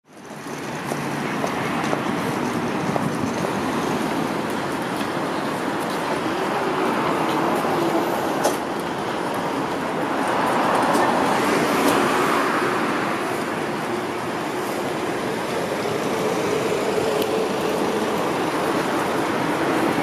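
City street ambience: steady road traffic noise, swelling as a vehicle passes about halfway through.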